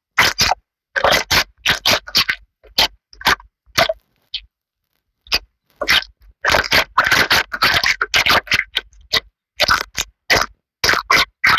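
Slime being pressed and squeezed by hand: a quick run of short, sharp bursts of sound with dead silence between them, packing closer together for a few seconds about halfway through.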